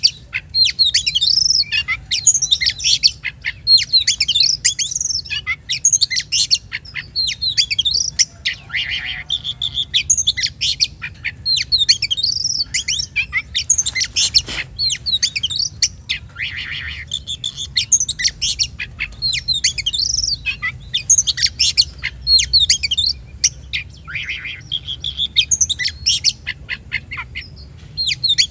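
Oriental magpie-robin (kacer) singing without pause: a fast, varied run of loud whistles, up-and-down sweeps and chattering notes, over a faint steady low hum. This is a trigger recording of the kind played to caged magpie-robins to provoke them into singing.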